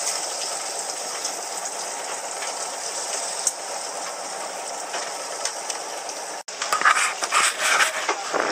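Steady rushing noise of wind and sea wash on a fishing boat. It breaks off briefly about six and a half seconds in, and a louder, choppier stretch of noise follows.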